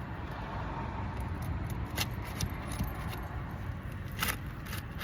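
Asphalt roof shingles being pried up and unsealed, giving a few sharp clicks and light scrapes, the clearest about two seconds in and again past four seconds. Underneath runs a steady low rumble.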